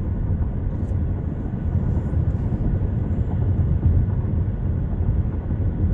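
A long Union Pacific intermodal freight train rolling past: a steady low rumble of cars on the rails.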